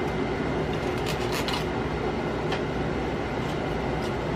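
A steady background hum and rushing noise, with a few faint clicks of a fork against a paper plate.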